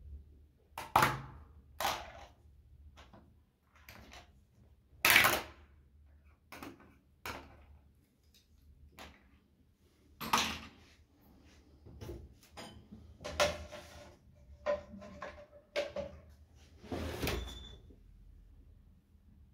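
Removable spring-steel print sheet of a Prusa 3D printer and the printed plastic rings being handled: a string of irregular clacks, knocks and snaps as the sheet is lifted off the magnetic bed and flexed to free the parts. The loudest knock comes about five seconds in.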